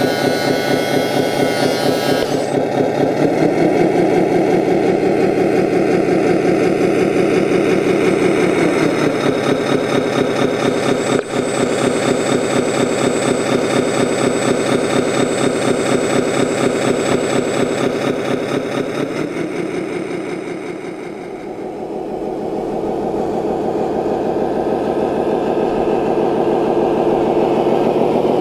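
Simulated diesel engine sound from the sound unit of a scale RC Scania 8x8 dump truck, idling and revving while the tipper dumps its load. It revs up a few seconds in, settles back to idle a little past the middle, then rises again near the end.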